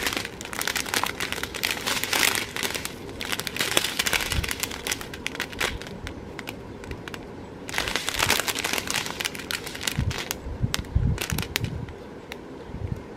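Clear plastic bags of round resin diamond-painting drills crinkling as they are handled and turned, the thin plastic crackling in busy stretches with a quieter spell in the middle and a few soft low bumps near the end.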